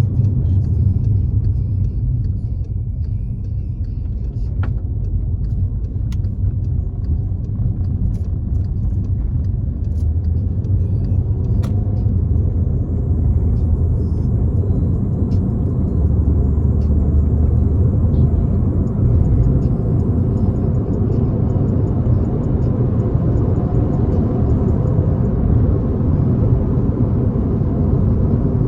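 Volkswagen Jetta cruising: a loud, steady low rumble of engine and road noise.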